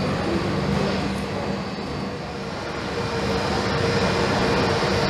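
Airbus airliner's twin jet engines running at taxi power as it rolls in toward the gate, a steady roar with a faint whine that grows a little louder in the second half.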